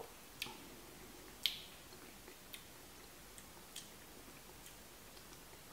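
Faint, irregular lip and tongue smacks of someone holding whisky in the mouth and tasting it: about six short, sharp clicks, the loudest about one and a half seconds in.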